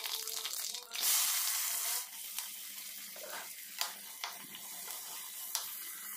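Curry leaves and green chillies sizzling in hot oil in a clay pot, loudest for about a second soon after they go in, then settling to a steady frying sizzle. A few sharp clicks come as shallots and onion are added and stirred.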